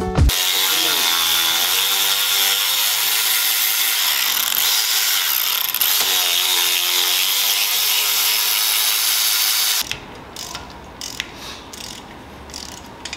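Cordless electric ratchet running steadily as it backs out the rocker-box bolts on a Harley-Davidson V-twin. It stops about ten seconds in, and the quieter clicks of a hand ratchet follow.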